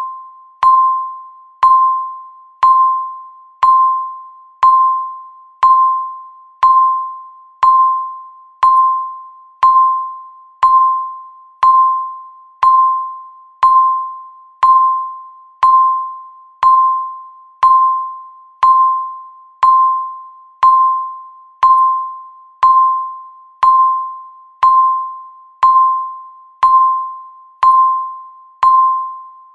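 Countdown timer beeping once a second: a single mid-pitched electronic beep that starts sharply and rings away before the next, repeating steadily.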